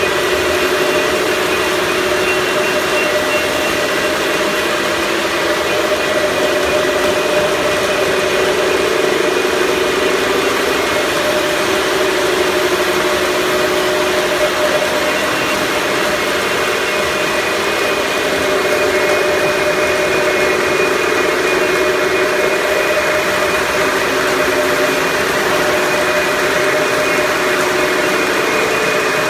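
A machine running steadily: a loud, even drone with a few held tones, unchanged throughout.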